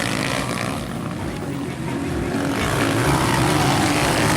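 Honda CG race motorcycles' four-stroke single-cylinder engines running at speed, a steady drone that grows a little louder in the second half.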